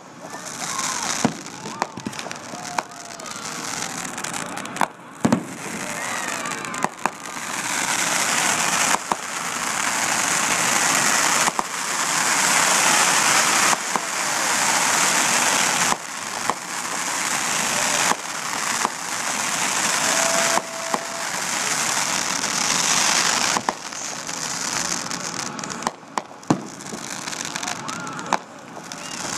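Fireworks display: repeated sharp bangs of bursting aerial shells over long stretches of dense crackling, heaviest through the middle of the stretch.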